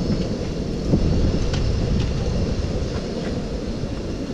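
Low, fluctuating rumble of wind buffeting the microphone, with a few faint clicks of a wooden spoon against the cooking pot near the end.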